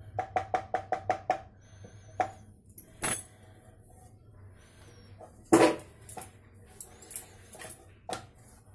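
Fork tines pricking rolled papdi dough on a metal rolling board: a quick run of sharp metallic taps, about six a second, for the first second and a half. Then a few scattered knocks and clinks as the dough and utensils are handled, the loudest about five and a half seconds in.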